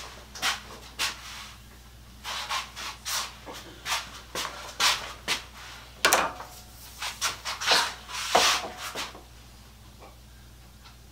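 Irregular scraping, rubbing and knocking at a workbench, some sharper than others, stopping about nine seconds in; a steady low hum continues underneath.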